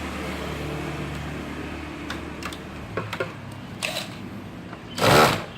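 A low steady hum stops about halfway through, and a few light clicks and knocks of handling come in the middle. Near the end a power screwdriver gives one short, loud rattling burst.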